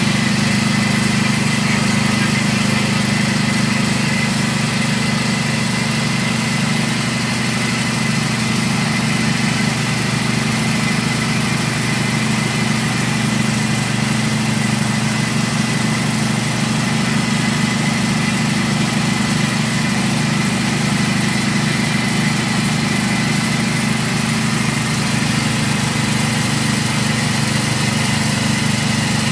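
Motor-driven mincer-style grinding machine running steadily while grinding fried peanuts and red chilies into pecel peanut paste: a constant low hum with a thin steady whine above it.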